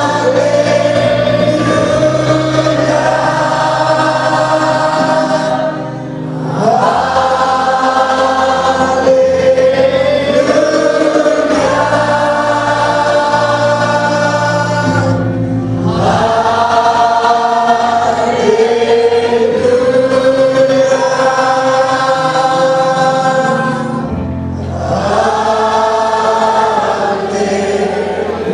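A group of voices singing a slow worship song together over a sustained instrumental backing, in long held phrases broken by brief pauses about every nine seconds.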